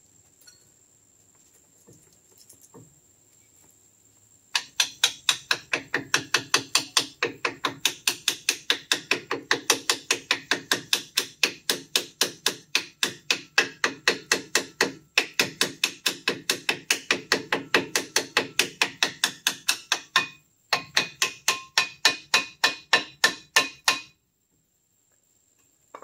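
Rapid, even hammer blows on metal at the truck's front brake and hub assembly, about three a second, starting about four and a half seconds in, pausing briefly twice and stopping about two seconds before the end.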